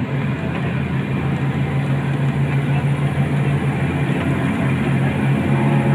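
Cabin noise inside a moving Mercedes-Benz OF 1623 front-engine diesel bus: a steady low engine hum over tyre and road rumble, growing slightly louder toward the end.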